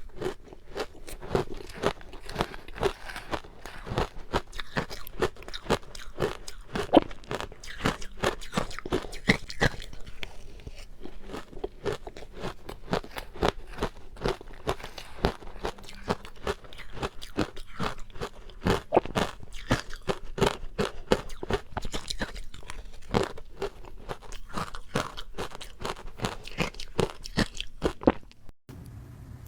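Close-up crunching and chewing of ice dusted with matcha powder: a dense, irregular run of crisp crunches as the ice is bitten and chewed, with a short break near the end.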